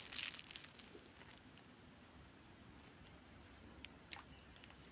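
Steady, high-pitched chorus of insects droning without a break, with a few faint clicks near the end.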